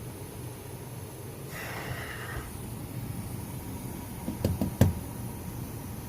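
A brief rustle, then a quick cluster of four or five knocks about four and a half seconds in, the last one the loudest, over a steady low rumble.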